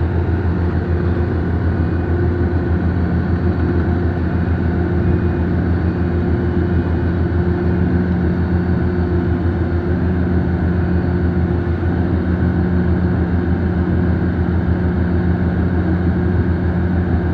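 Heavy diesel engine of construction machinery running steadily with a deep, even engine note.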